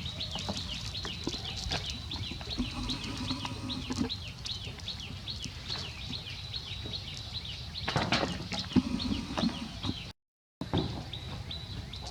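A rapid run of short, high chirps, several a second, from a small animal, over a background hum of outdoor noise, with a louder rustle or knock about eight seconds in.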